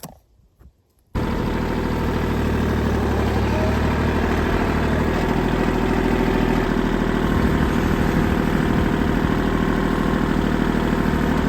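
A large engine running steadily at an even speed, starting suddenly about a second in, typical of earthmoving machinery at work on grading.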